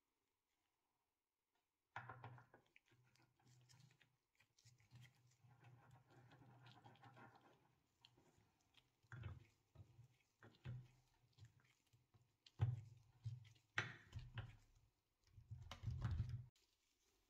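Faint handling sounds of cast-iron bread slicer parts being assembled by hand, starting about two seconds in: irregular light scraping as a knob is screwed onto a threaded stud, with a few sharper clicks and knocks in the second half.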